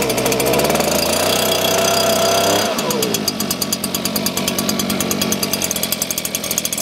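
Stihl SH 56 C-E two-stroke leaf blower engine running just after a cold start, at a steady fast idle. About two and a half seconds in, its speed drops to a lower, rougher idle with a rapid, even pulse.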